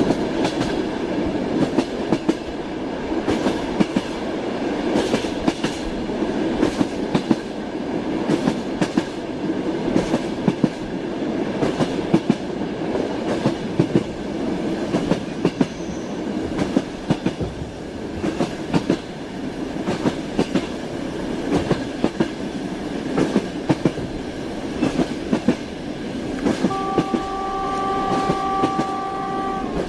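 Train wheels clattering over rail joints as the train runs steadily: a continuous rumble with repeated clickety-clack knocks, often in pairs. Near the end a train horn sounds one steady note for about three seconds.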